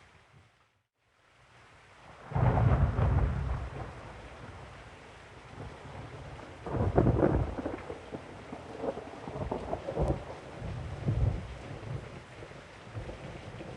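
Rain falling steadily, broken by loud, low rumbling surges: a sudden one about two seconds in that fades over a couple of seconds, another around seven seconds, and smaller ones after. The sound almost drops out for a moment near the start.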